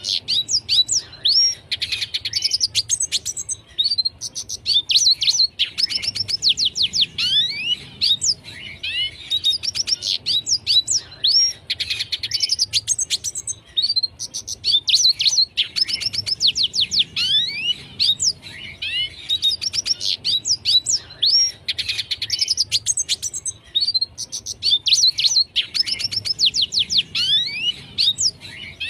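Red siskin singing: a run of twittering song phrases made of fast chirps and downward-sweeping notes, one phrase about every two seconds.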